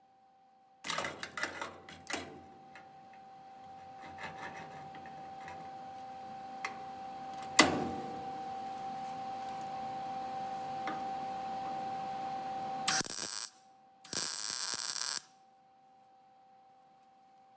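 Welding on car body sheet metal: a long crackling hiss with scattered pops that builds for about twelve seconds. Then come two short, loud hissing bursts. A faint steady high hum runs underneath.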